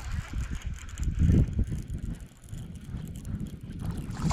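Quantum Smoke S3 baitcasting reel being cranked, reeling in a hooked fish, under a heavy low rumble of wind on the microphone.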